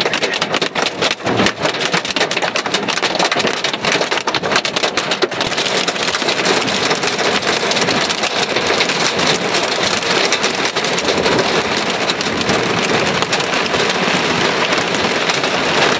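Hail and heavy rain pelting a car's roof and windshield, heard from inside the car: a dense clatter of separate hits for about five seconds, then a thicker, more even downpour.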